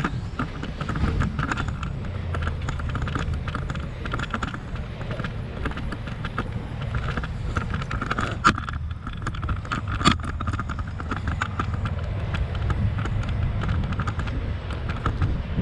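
Steady low rumble of vehicles with scattered small clicks, and two sharp knocks about eight and a half and ten seconds in.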